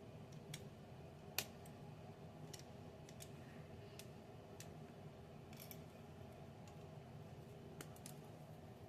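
Lego pieces being handled and pressed together: scattered small plastic clicks and taps over a faint room hum, the sharpest about a second and a half in.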